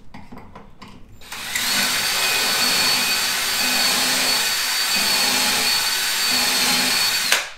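Cordless drill running steadily with a high whine as its stepped bit bores a pocket hole through a Kreg jig's guide into half-inch wood. It starts about a second in and stops abruptly near the end.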